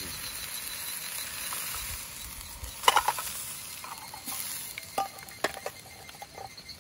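Chicken breast sizzling in a small frying pan on a single-burner camping gas stove, with metal tongs clinking against the pan a few times, loudest about three seconds in.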